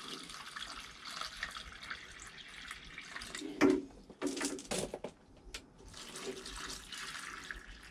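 Water pouring and splashing from a plastic watering can into empty pots sunk in a tomato grow bag, draining into the compost. About three and a half seconds in the pouring breaks off for a moment with a few knocks, then resumes.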